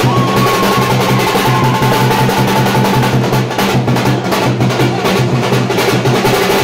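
Dhol drummers playing a fast, steady, loud rhythm, with sharp clacking percussion over a steady low drone.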